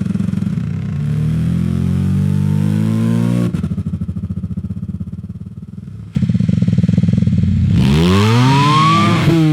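Motorcycle engine revving. Its pitch climbs, then drops off suddenly into a fading, pulsing run-down. About six seconds in the engine comes back loud, and near the end its pitch rises and then falls again.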